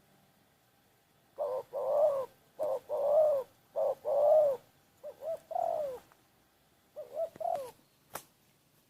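A dove cooing in five phrases, each a short note followed by a longer arched one. A single sharp click near the end.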